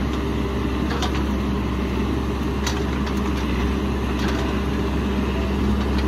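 Caterpillar 416F backhoe loader's diesel engine running steadily with a deep hum, with a few faint clicks over it.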